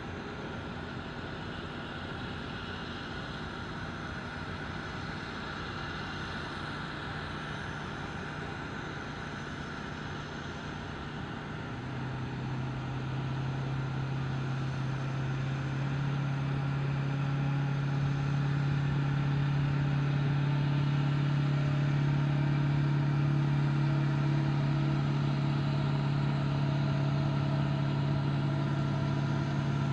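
Aircraft tow tractor's engine running steadily as it tows an Airbus A380, a low drone that gets louder about twelve seconds in and again a few seconds later as the tug and aircraft come closer.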